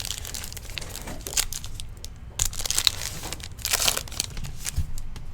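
A trading-card pack wrapper being torn open and crinkled, in several short rustling bursts.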